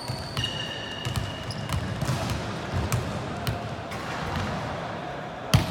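Indoor volleyball game sounds: short high squeaks of sneakers on the court early on and several sharp ball impacts, the loudest a hard hit near the end.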